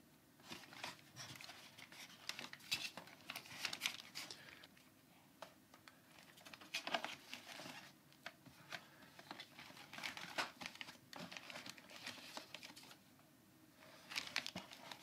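Faint handling noise from a bulky plastic VR headset being turned over and shifted in the hands: scattered small clicks, taps and rustles from its shell, straps and cable.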